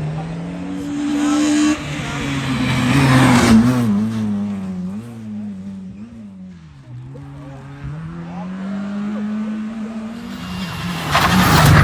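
Rally car engine accelerating hard and easing off through gear changes, its pitch repeatedly climbing and dropping as it drives through the stage. It is loudest about three and a half seconds in, fades for a moment, then builds again to a loud burst near the end.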